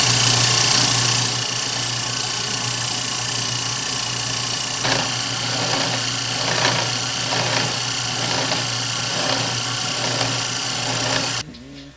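Tire truing machine's rotating cutter shaving rubber from a spinning wire-wheel tire, a steady mechanical whir over a constant hum. Faint scraping pulses about once a second mark the cutter catching the tire's high spot on each turn, as the tire is only shaved part way around. The machine cuts off suddenly near the end.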